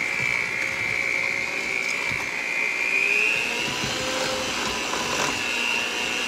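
Electric hand mixer running steadily as its beaters whip cake batter, a motor drone with a high whine that rises slightly in pitch about halfway through.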